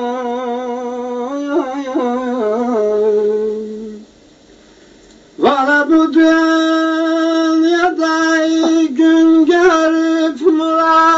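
Solo voice singing a Turkish folk lament in long, melismatic held notes with ornamental wavering. A first held note steps down in pitch and fades about four seconds in. After a short pause a higher note is taken up and held, with turns and quivers.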